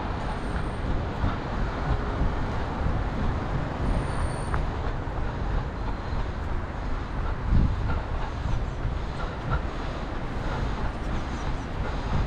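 Steady rumble of road traffic with buses, mixed with a low wind rumble on the microphone.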